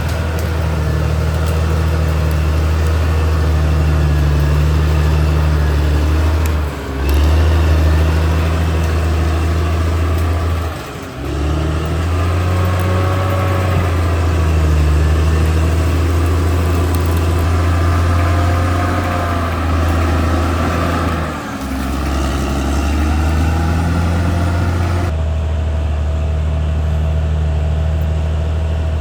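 Caterpillar D6R XL bulldozer's diesel engine running steadily under load, its pitch rising and falling as the machine works, with brief dips three times. Near the end the sound turns duller.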